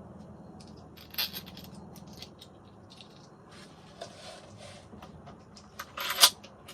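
Small metal hardware, drawer-knob screws and parts, clicking, scraping and rattling as it is handled. There is a short clatter about a second in and a louder one near the end, over a faint steady hum.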